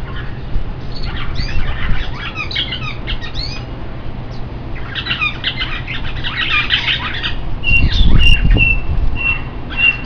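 A flock of small caged birds in an aviary chirping and squawking in overlapping bursts. Near the end one bird repeats a short call at the same pitch about twice a second. There is a brief low rumble about eight seconds in.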